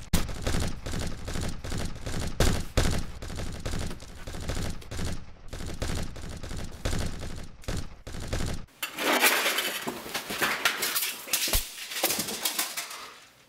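Rapid automatic gunfire, shot after shot in quick succession. About nine seconds in it changes to a thinner, hissier crackle of shots that fades out at the end.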